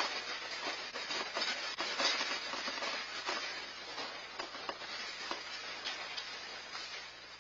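A house and porch rattling and creaking in the shaking of the magnitude 7.0 Anchorage earthquake, heard through a home security camera's microphone: a dense patter of small clicks and crackles over a hiss, slowly dying away as the shaking eases.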